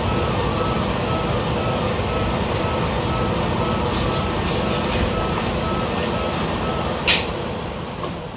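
Cabin running noise of a YR-880 diesel railcar slowing into its terminal stop, with a repeating beeping tone in the background that stops about six and a half seconds in. A short sharp hiss comes about seven seconds in, and the noise dies down after it.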